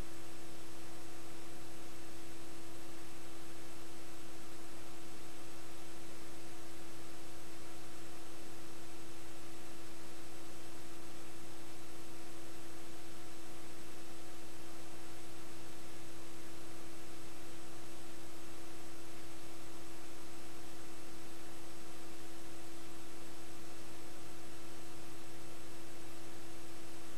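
Steady electronic hum with a constant hiss, unchanging throughout: noise on an empty audio track, with no sound from the game recorded.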